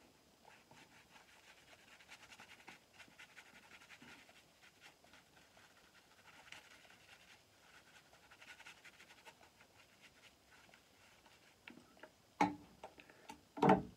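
Double-edge safety razor scraping through stubble on the face in short, repeated strokes: a further shaving pass. Near the end come two louder knocks.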